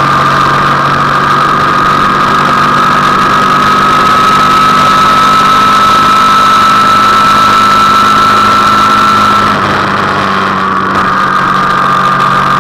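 Motorcycle engine running at highway speed with wind rush, a high whine slowly rising in pitch, then easing off briefly about nine and a half seconds in before picking up again.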